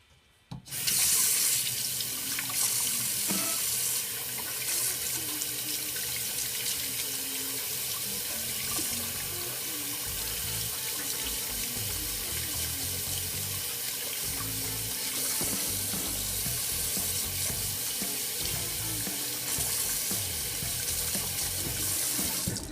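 Tap water running steadily into a sink while hands are washed under it. It starts about a second in and cuts off suddenly at the end.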